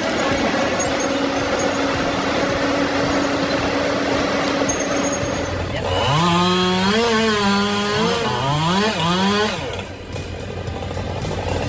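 Dense, steady machine noise, then about six seconds in a chainsaw engine revving up and down several times for about four seconds before dropping away.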